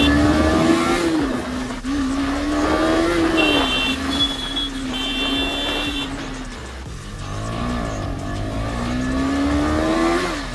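KTM 250 Duke's single-cylinder engine under hard acceleration, its pitch climbing and then dropping at each upshift: about a second in, around three seconds and just before the end, with an easing off near the middle. Wind rush runs under it, and a high horn beeps three times around the middle.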